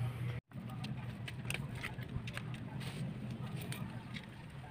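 Scattered light clicks and taps, typical of metal tile trim being handled on a tile, over a steady low hum. The sound drops out briefly about half a second in.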